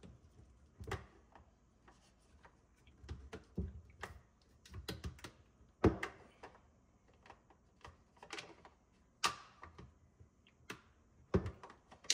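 Plastic filter-housing wrench turning and snugging down the plastic filter housings of a reverse osmosis system: irregular clicks, taps and knocks of plastic on plastic, with a sharper knock about six seconds in and a few more near the end.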